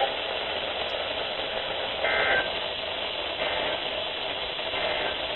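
EAS end-of-message data tones from a NOAA weather radio at the close of a Required Weekly Test: three short warbling digital bursts about 1.3 seconds apart over steady radio static, the first the clearest.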